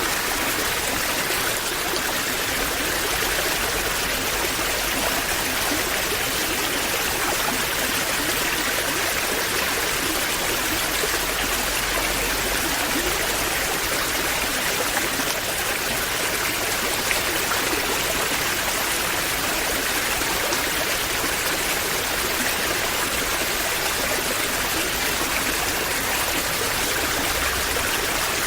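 Waterfall: steady rushing and splashing of falling water, even and unbroken.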